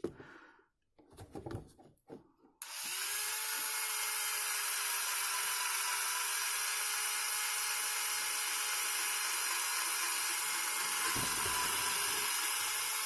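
Handheld electric drill starting up about two and a half seconds in and then running at a steady speed, boring a hole through the plastic case of a cheap power strip. A few light handling knocks come before it.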